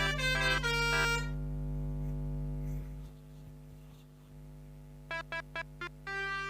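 Pianika (melodica) playing the 'telolet basuri' bus-horn tune. A run of notes stops about a second in, with a steady low hum under it that fades out after about three seconds. After a pause, a quick string of short staccato notes starts about five seconds in, ending on a longer held note.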